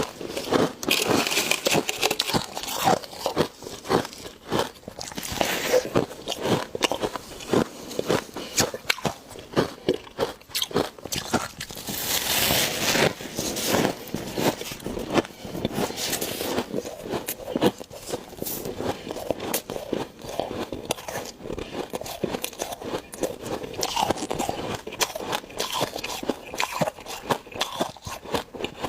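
Close-up crunching and chewing of thick frost and ice: many quick, crackly bites in an irregular stream, now and then a longer rasping stretch.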